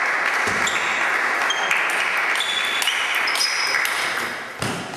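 Table tennis rally: the celluloid ball clicking off rackets and the table in quick succession, over a steady hiss, with a few brief high squeaks. A dull thump near the end.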